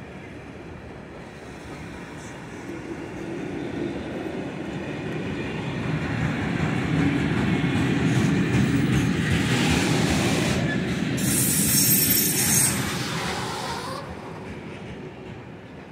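Freight train wagons rolling past on the rails, a steady rumble that builds up and then fades. Tank, covered and open goods wagons of a mixed freight train. A high-pitched wheel squeal joins in for about three seconds in the latter part.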